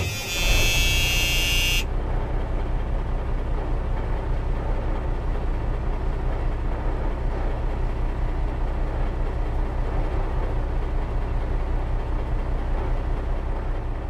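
An engine running steadily, with a fast even pulse, fading out near the end. A high electronic tone sounds over it for the first couple of seconds.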